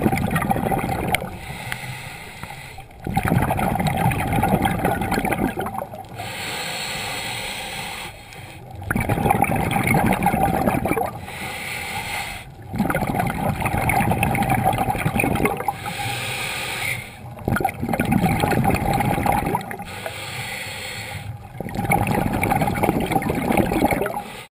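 Scuba regulator breathing, muffled through an underwater camera housing: a bubbling rush of exhaled air about every four to five seconds, with a quieter hiss between the rushes.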